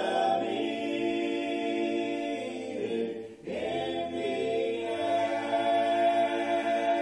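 A cappella gospel quartet of three men and a woman singing in harmony without accompaniment, holding long chords, with a short break for breath about three seconds in.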